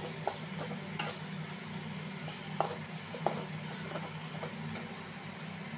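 Prawns sizzling as they fry in a metal wok, with a flat wooden spatula scraping and knocking against the pan as they are stirred, a few sharp clicks among the scraping. A steady low hum runs underneath.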